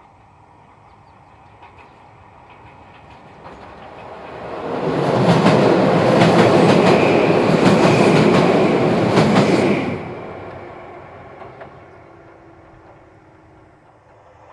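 Izuhakone Railway Daiyuzan Line electric train passing close by: it builds up, runs past loudly for about five seconds with quick clicks of the wheels over rail joints, then fades away.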